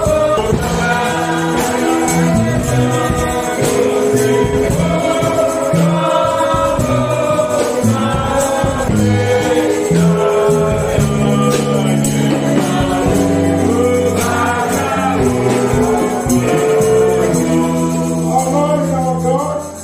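Gospel music: a choir singing over a band with held bass notes and steady percussion. The music drops away right at the end.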